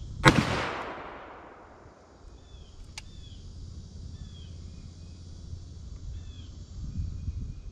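A single shot from a Smith & Wesson 460 XVR revolver firing a high-pressure .460 S&W Magnum load, which the chronograph clocks at about 2,030 ft/s. A sharp crack about a quarter second in echoes away over a second or so. Birds chirp faintly throughout.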